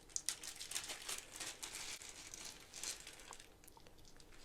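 Small plastic bag of game pieces crinkling as it is handled, in irregular rustles that thin out after about three seconds.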